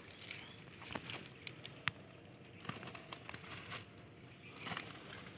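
Rustling and crackling of a cast net being pulled and untangled by hand over dry grass, with irregular small clicks and taps, one sharp click about two seconds in and a louder rustle near the end.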